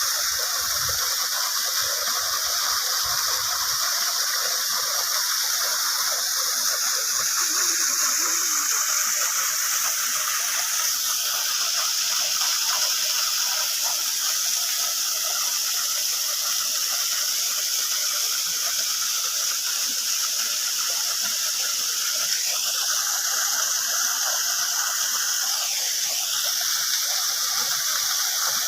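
Rain-fed waterfall running full: a steady, dense rush of falling and splashing water.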